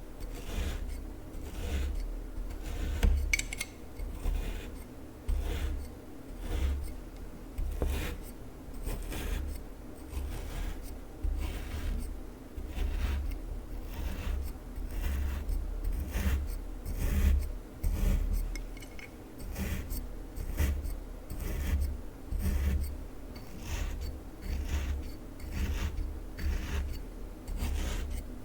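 Kinetic sand being squeezed, pressed and rubbed by hand close to the microphone: a gritty, rasping crunch repeated about once a second, each stroke with a soft low thud.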